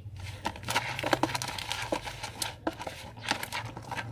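Homemade flour-and-borax-water slime being worked by hand with more flour: irregular crinkling and crackling with small sticky pops as the too-sticky dough is kneaded.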